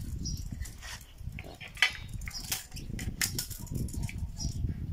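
Scattered light metallic clicks and taps as a tape measure is handled and set against the digger's steel frame, over a steady low rumble.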